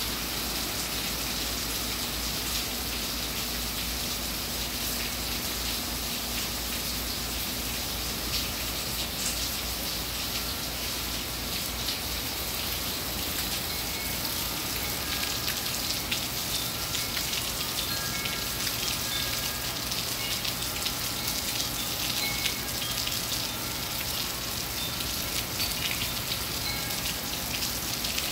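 Steady rain falling, a dense even hiss with scattered drops pattering on surfaces.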